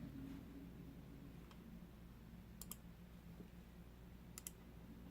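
Faint computer mouse clicks over a low steady hum: a single click about a second and a half in, then two double clicks, each a quick press-and-release pair.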